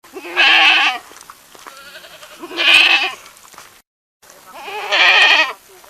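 Goat bleating three times, each a wavering bleat of about a second, spaced about two seconds apart.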